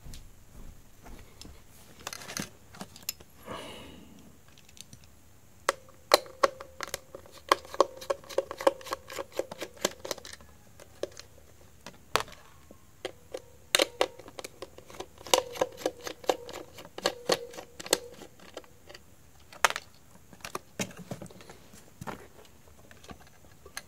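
Small clicks, ticks and scrapes of plastic handling as a screw is turned out of a toy drum set's plastic base with a small screwdriver. The clicks come thick and fast through the middle stretch.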